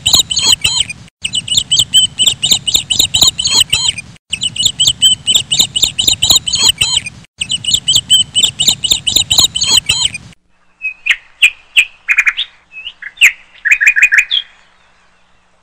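Small birds chirping rapidly over a low hum, one three-second stretch of recording repeated four times in a row as a loop. It cuts off about ten seconds in, and a few scattered chirps and sharp clicks follow.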